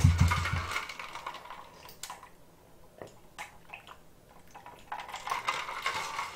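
Small clicks and mouth sounds while eating, then a tall plastic cup of water lifted and drunk from, with a soft rush of water in the last second or so.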